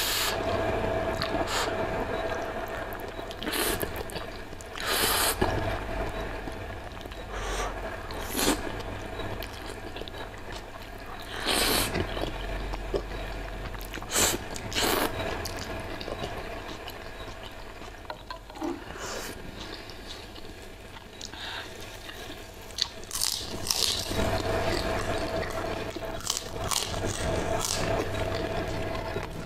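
Close-miked eating of saucy spicy instant noodles: wet slurps of noodle strands and moist chewing and lip-smacking, broken by irregular sharp clicks.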